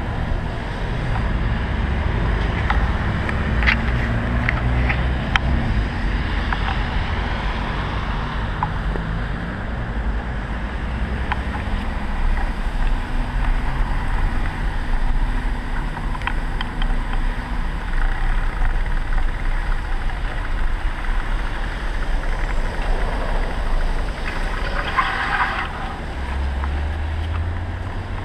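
Rush-hour city traffic heard from a moving bicycle: a steady low rumble of road noise, with a motor vehicle's engine droning over the first several seconds. Near the end there is a brief high squeal, and then an engine rising in pitch as it pulls away.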